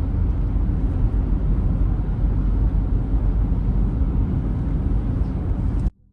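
A steady, loud low rumbling noise that cuts off suddenly near the end.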